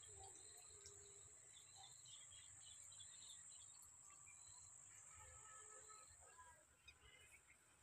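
Faint rural outdoor ambience: a steady high-pitched insect drone, with scattered bird chirps and a low background rumble.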